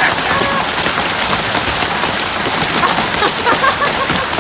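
Large hailstones pelting down with heavy rain: a dense, steady clatter of countless small impacts.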